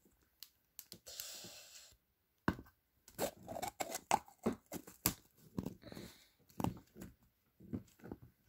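Hand-squished slime being pressed into a small plastic container: a run of small sticky clicks and pops, with a brief hiss about a second in.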